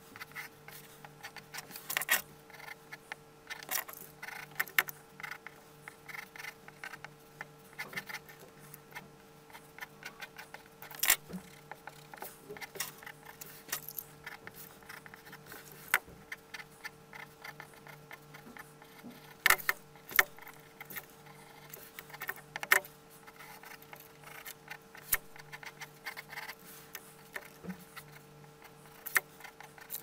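Pencil sketching on paper: irregular short scratchy strokes and light taps of the lead, some sharper than others. A steady faint hum runs underneath.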